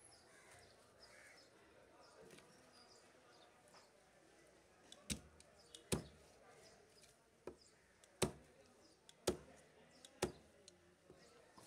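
A large knife chopping through a whole fish into steaks on a wooden chopping block: about six sharp chops in the second half, roughly one a second.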